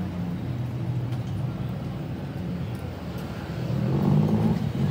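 Urban street ambience dominated by a steady low rumble of motor traffic, swelling louder about four seconds in.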